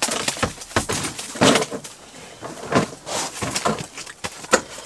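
Irregular rustling, scraping and knocking of a person moving about and handling gear close to the microphone, with a quick run of sharp clicks and scuffs.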